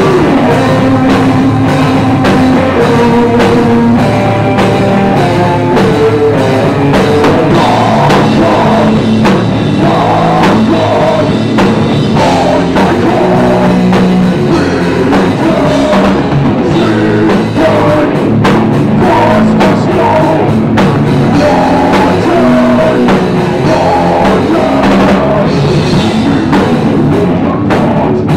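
A rock band playing live and loud: electric guitar and bass guitar riffing over a drum kit, with singing.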